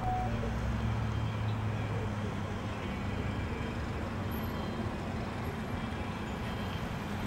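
Steady engine and road noise of a car driving, heard from inside the cabin, with a low, even engine hum.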